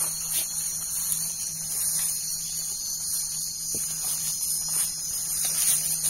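Night insect chorus in tropical forest: crickets and other insects trilling steadily at high pitch without a break.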